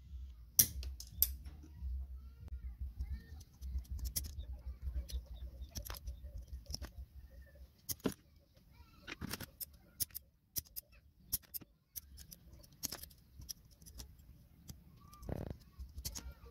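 Hand metal shears snipping a thin silver sheet, making irregular sharp clicks and snaps, with metal tools clinking on the bench. A crow caws once near the end.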